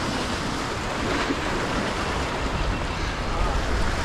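Steady surf washing against a rock wall, with wind buffeting the microphone.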